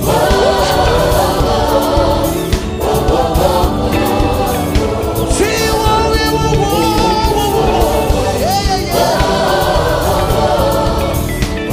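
Live gospel music: a male lead singer and a choir singing over a band, with a steady beat.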